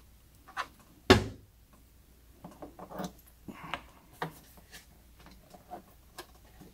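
Handling noises: one sharp knock about a second in, then a scatter of light plastic clicks and taps as the detachable power cord's connector is fitted into the socket on the back of an Instant Pot's plastic base.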